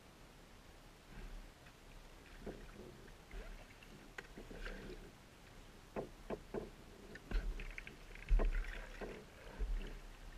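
A Pelican Quest 100 kayak being paddled: water splashing and dripping from the paddle strokes. There are three sharp knocks about six seconds in and a few low thumps near the end.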